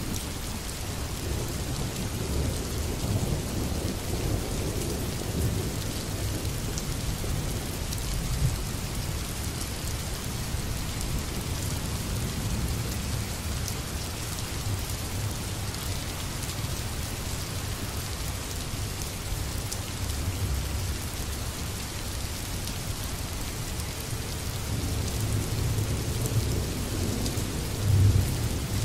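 Steady rain with low thunder rumbling, the rumble growing louder near the end.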